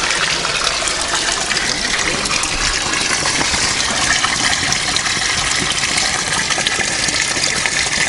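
Spring water gushing steadily from a metal outflow pipe and splashing onto the stones below.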